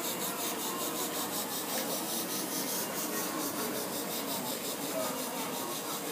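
Steady hiss of compressed air from an airbrush spraying paint, with a faint rapid flutter in the hiss.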